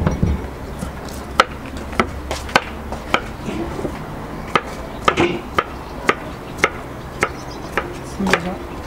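Kitchen knife chopping an onion on a wooden cutting board: sharp, single knocks about two a second, with a dull thump at the start as a metal stand is set down on the table.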